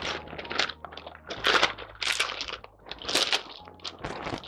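Thin clear plastic bag of a plastic model kit crinkling in irregular bursts as it is opened and a parts runner is worked out of it.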